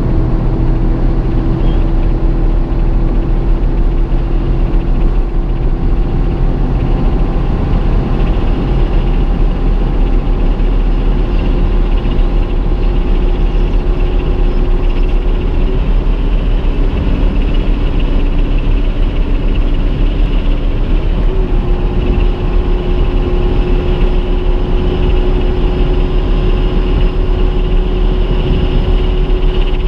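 Chevrolet Corvette C7 Stingray's naturally aspirated 6.2-litre V8 pulling hard at very high speed, heard inside the cabin under heavy wind and tyre roar as the car accelerates from about 260 toward 300 km/h. The sound is loud and steady, with a faint engine tone that steps up slightly twice.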